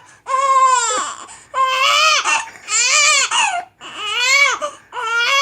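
A young girl with the hiccups crying loudly: five high-pitched wailing cries in a row, each rising and then falling in pitch, with short breaths between them.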